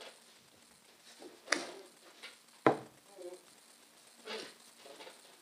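Plastic Play-Doh tubs being picked up and set down on a table: a few short, sharp knocks, the two loudest about a second and a half and two and a half seconds in.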